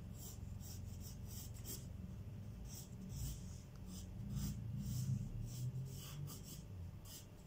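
Pencil scratching across drawing paper in a run of short, irregular strokes as lines are sketched.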